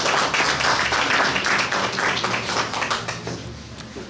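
Audience applause, many hands clapping together, dying away over the last second.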